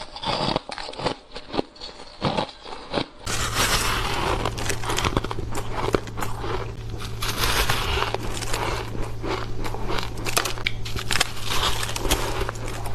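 Soft ice or freezer frost being bitten and chewed close to the microphone. At first come separate crunches with short gaps. About three seconds in the recording changes suddenly, and from there on the crunching is dense and continuous over a steady low hum.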